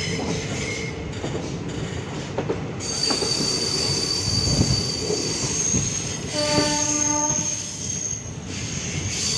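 Passenger train coaches rolling slowly on the rails, heard from an open coach doorway. The steel wheels squeal in a high steady tone from about three seconds in, and a short train horn blast sounds about two-thirds of the way through.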